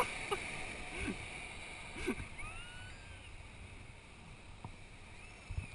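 Faint steady wash of surf on a sandy beach with wind hiss, and a few brief, faint distant calls.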